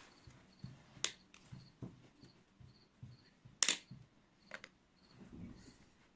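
Sharp plastic clicks and taps from a powdered-formula tin, its plastic scoop and lid being handled, three clear clicks with the loudest about three and a half seconds in, and soft handling noise between them.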